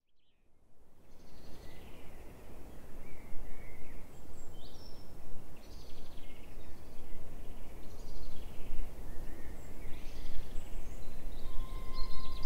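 Birds singing in short repeated phrases over a steady low outdoor rumble, fading in from silence at the start. Near the end, steady held notes of music come in.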